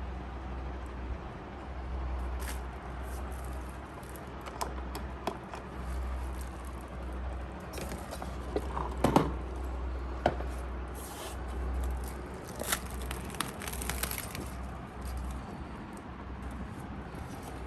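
Packaging being handled: scattered scrapes, clicks and crackles, louder in a cluster about halfway through, over a low handling rumble.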